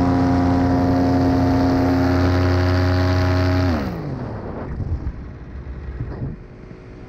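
A paramotor engine running steadily at cruise power. A little past halfway its pitch falls within about half a second, and it drops to a much quieter idle: the throttle connection has broken and let the engine fall back to idle.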